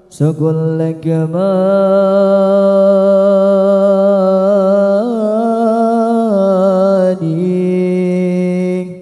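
A young man's solo voice singing a long, drawn-out melismatic line of an Arabic devotional song through a handheld microphone, unaccompanied. After a rising glide at the start, he holds a few long notes, stepping up about five seconds in and back down again, with a brief break near the end.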